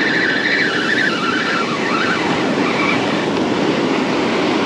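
Spinning reel being cranked by hand to wind in line, its gears whirring steadily, with surf washing behind. A high squeak runs through the first two seconds, stepping down in pitch before it fades.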